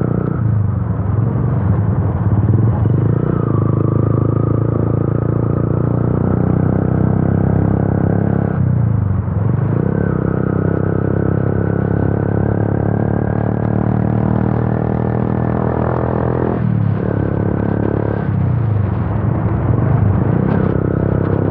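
Yamaha FZ V2's single-cylinder engine running loud through an Akrapovic exhaust with the dB killer removed, under way. The revs drop and climb again three times, about nine, seventeen and nineteen seconds in, as with gear changes.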